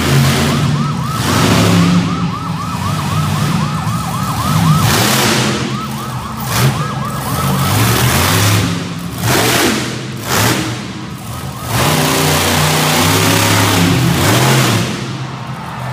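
Monster truck engine revving in bursts, with a siren yelping rapidly over it, about two to three wails a second, through the first half.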